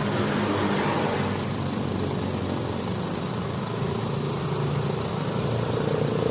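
Honda grass-cutter engine running steadily under an engine-speed test, holding an even pitch.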